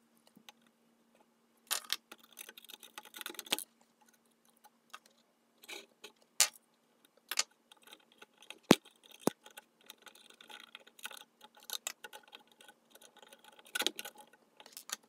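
Irregular small metallic clicks, taps and scrapes of tweezers and a soldering iron tip working a blown resistor's leads free from the terminal lugs of a vintage multimeter's switch wafer, with two sharper clicks close together about halfway through. A faint steady hum runs underneath.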